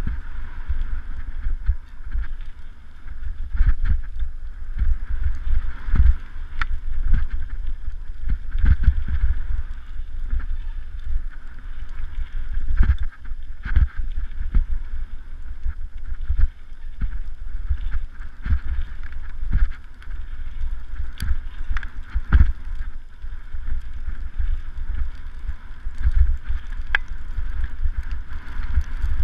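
Mountain bike ridden fast over dirt singletrack, heard from a camera mounted on the bike: a steady low wind rumble on the microphone, with frequent knocks and rattles as the bike goes over bumps.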